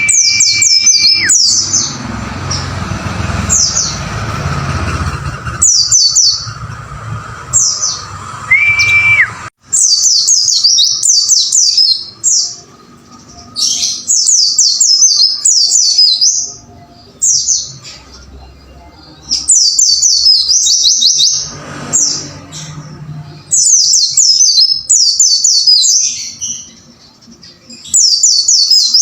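White-eye (pleci) singing in repeated bursts of rapid, high, falling notes, the 'wucit wucit' song. Two long steady whistles come at the start and again about nine seconds in, over a hiss that stops shortly after.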